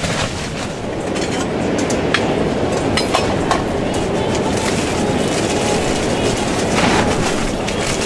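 Gale-force wind battering a tent, heard from inside as a steady, loud rumble, with a few sharp clicks and a brief rustle about seven seconds in.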